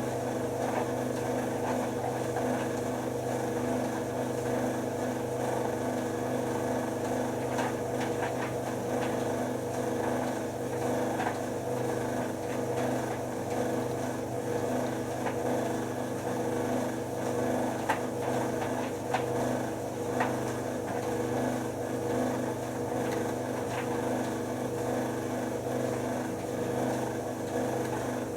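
White Knight C44A7W vented tumble dryer running, its motor and drum giving a steady hum and whirr, with a few light clicks or knocks from the load tumbling.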